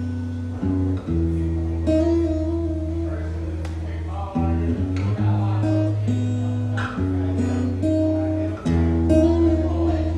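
Acoustic guitar strumming a chord progression, the chords changing every second or two with strong ringing bass notes.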